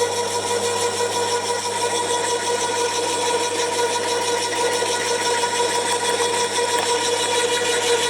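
Flymo garden shredder's electric motor and cutter running steadily, a constant even hum, on a test run after the cutter-tension adjuster was repaired.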